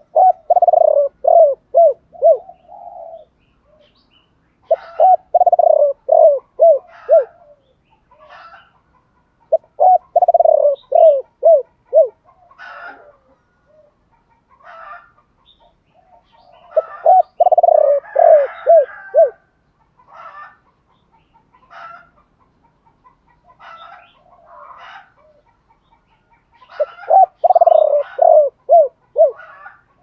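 Spotted dove cooing: five phrases in turn, each a quick run of five or six short coo notes lasting about two seconds, separated by pauses of a few seconds.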